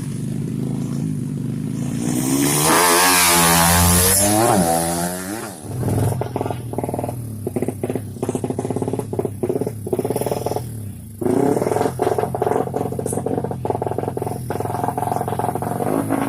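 Drag racing motorcycle engines revving hard: a loud rev climbs in pitch and peaks about three to five seconds in, then the engine note turns choppy, cutting in and out in quick throttle blips.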